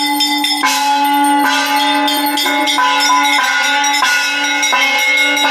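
Brass puja bells and a hand-held brass gong-plate struck over and over, about two strikes a second, their rings overlapping into a continuous clangour: ritual ringing during the puja offering.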